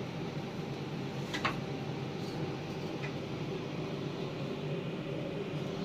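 Steady fan-like hum with a low drone, and a couple of faint clicks about a second and a half in.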